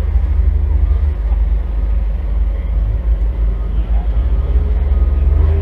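Demolition derby car engine idling with a steady low rumble, heard from inside the stripped cabin.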